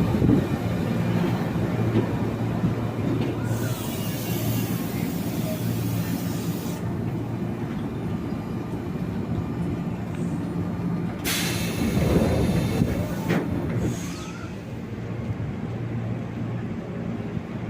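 Train at a station platform: a steady low hum of its running equipment, broken twice by bursts of hiss, about three and a half seconds in and again about eleven seconds in.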